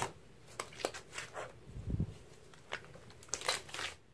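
Slime being squeezed and pressed by hand, giving off irregular sticky clicks and pops, sparse at first and coming in a quicker cluster near the end.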